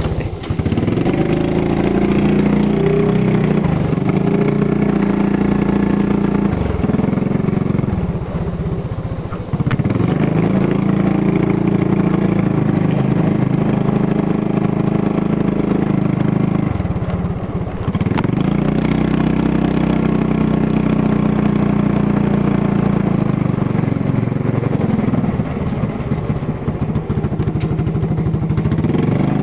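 Motorcycle engine running as the bike is ridden along, mostly steady. Its pitch drops briefly a few times as the throttle is eased off, then picks back up.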